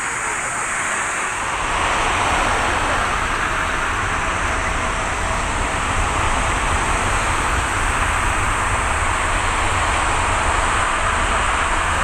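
Jet airliner's engines roaring, a steady wide rush of noise with a low rumble that swells about a second and a half in and then holds.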